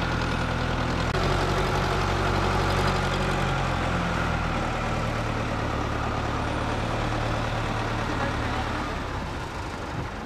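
An engine idling steadily, a low even hum that eases off a little near the end.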